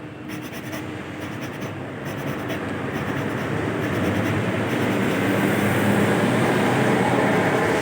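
Gritty scraping of an Isuzu 6BG1 diesel engine valve being lapped into its seat with grinding compound, the rubbing growing louder over the first few seconds.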